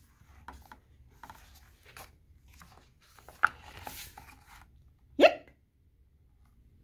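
Paper rustling and soft clicks as the pages of a hardcover picture book are turned. About five seconds in comes one short, loud 'hic!', a voiced imitation of a hiccup.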